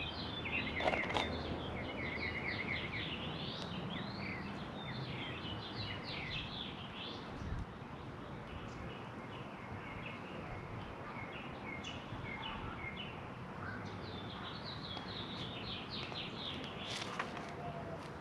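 Small birds chirping and singing in quick runs of short high notes, busiest in the first few seconds and again near the end, over a steady outdoor background noise.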